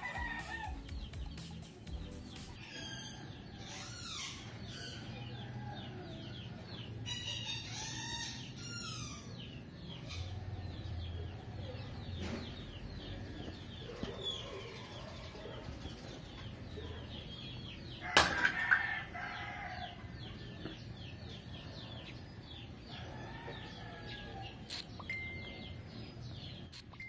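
Birds chirping and calling in the background, many short falling chirps with a few fuller calls. A sharp knock about 18 seconds in and a lighter click near the end.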